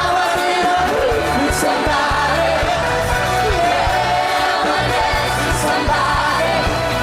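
Pop music with singing over a steady beat.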